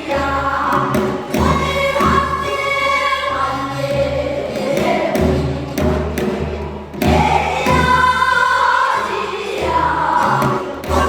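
Korean traditional folk singing in the southern namdo style, sung voices over a steady low beat.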